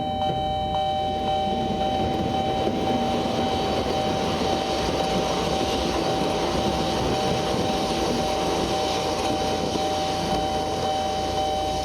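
Japanese level crossing warning bell ringing in a steady tone while a train passes through, the train's rolling rumble building about a second in and carrying on under the bell.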